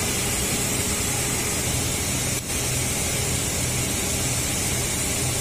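Forklift engine running steadily at idle, a low hum under a constant hiss, with a momentary drop about halfway through.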